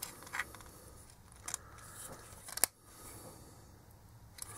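Small screwdriver prying and scraping at the silicone-glued plastic cover of an LED bulb, three short sharp scrapes about a second apart.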